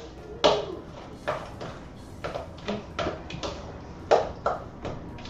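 A spoon knocking and clinking against a bowl of guacamole while it is stirred, in irregular sharp taps about two or three a second.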